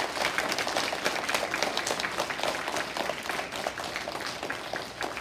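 Audience of schoolchildren applauding, many hands clapping at once.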